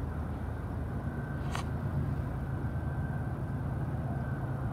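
Diesel locomotives of an approaching freight train, still out of sight: a steady low rumble, with a faint high steady tone over it that stops near the end.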